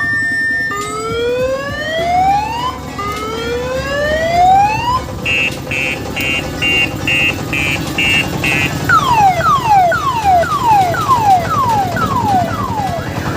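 Electronic multi-tone siren cycling through its patterns: two slow rising whoops, then a rapid run of beeps, then quick falling chirps about two a second. Under it, a low diesel engine is running.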